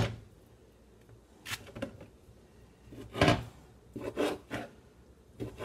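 Kitchen knife cutting seasoned beef strips into pieces: a series of short scraping, rasping strokes, with the loudest about three seconds in and a quick cluster after it.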